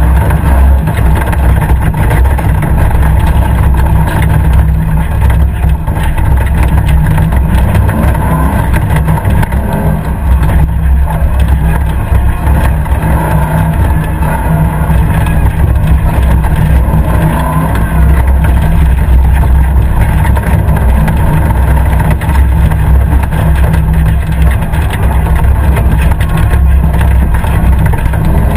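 Competition safari 4x4's engine running hard and loud, a deep, steady drone.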